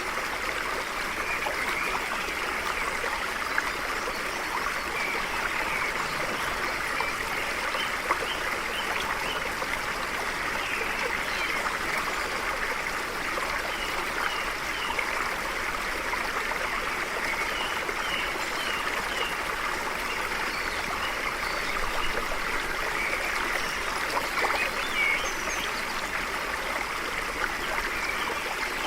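Stream flowing steadily, with scattered faint bird chirps over the water.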